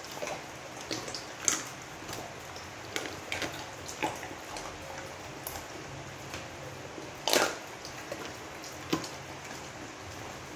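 A pit bull eating raw chicken feet and giblets from a plastic bowl: irregular wet chewing, smacking and crunching of bone, with the loudest crunch a little past seven seconds in.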